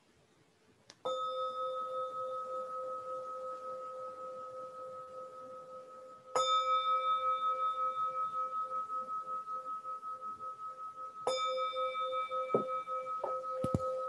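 A singing bowl struck three times, about five seconds apart, each strike ringing on in two steady tones that waver in loudness as they slowly fade. A few light knocks near the end.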